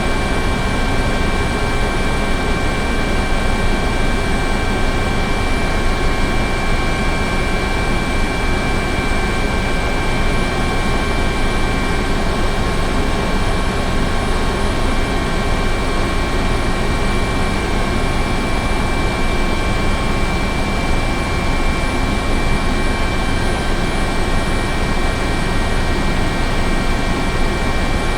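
Helicopter running steadily: a constant high turbine whine over a heavy rumble, with no change in level or pitch.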